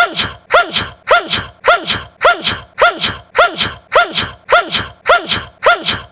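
A man's short, cute sneeze looped over and over, nearly two sneezes a second. Each is a quick voiced catch with a pitch bend, followed by a hissy burst.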